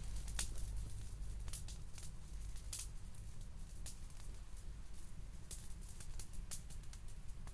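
Wood campfire crackling: irregular sharp pops and snaps, a few each second, over a steady low rumble.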